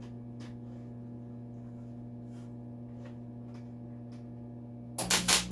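Steady electrical hum of a switched-on MIG welder. Near the end, a short burst of loud crackling as the arc is struck, a start that doesn't hold.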